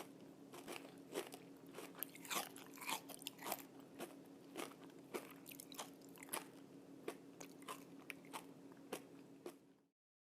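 Crispy pan-fried bacon crunching as it is bitten and chewed: irregular sharp crackles, several a second, over a steady low hum. The sound cuts off near the end.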